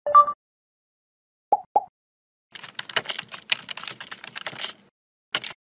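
Computer keyboard typing sound effect: a quick run of key clicks lasting about two seconds, with one more key click near the end. A short two-tone chime and two soft blips come before the typing.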